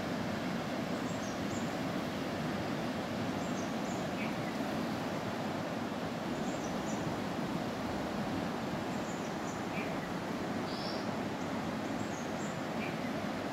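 Steady rushing of a fast-flowing river in flood, with a few short, high chirps on top at scattered moments.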